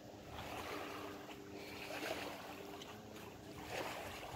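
Small waves lapping at the water's edge in a light breeze, coming in soft swells every second or so, over a faint steady hum.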